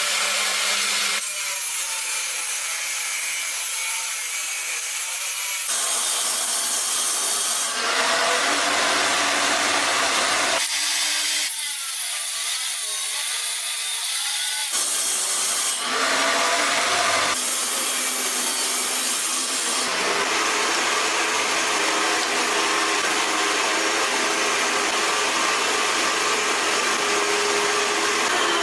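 Wood being sawn and rubbed by hand or small tools, a dense, rasping noise that changes abruptly every few seconds as short clips cut from one to the next.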